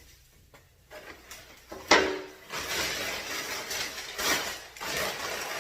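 Packing paper and a thick aluminum block-off plate being handled in a cardboard box: a sharp clank with a short ring about two seconds in, then continuous crinkling and rustling of heavy paper.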